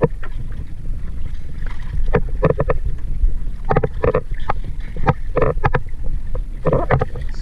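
Steady low rumble of an outrigger fishing boat at sea, with wind on the microphone. Several short, louder sounds break in at intervals.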